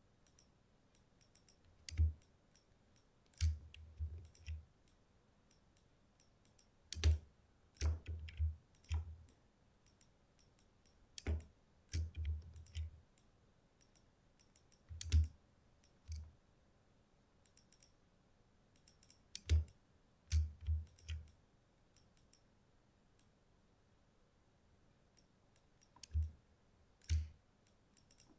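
Computer mouse clicking, single clicks and quick runs of two to four with pauses of several seconds between, as the clone stamp tool is dabbed over marks on the photo.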